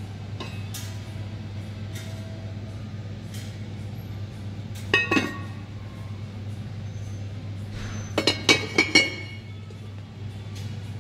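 Cast-iron cocotte lids clinking against their pots as they are handled: one ringing clink about halfway through, then a quick run of four or five clinks near the end, over a steady low hum.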